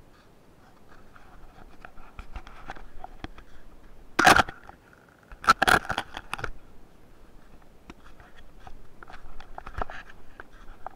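Footsteps crunching in snow and rubbing and scraping on a small handheld camera. Two loud knocks and scrapes of handling noise come about four and about five and a half seconds in.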